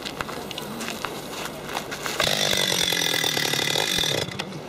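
Two-stroke Stihl chainsaw idling, then revved hard with the bar held clear for about two seconds before dropping back to idle.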